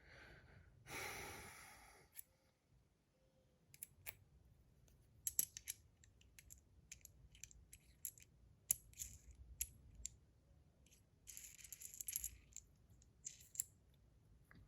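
Faint, sharp metallic clicks and taps from a stainless steel bar spinner fidget toy being handled, with a short rush of hiss about a second in and another around eleven seconds in. The spinner is being checked after a part its bearing rubbed on was flattened.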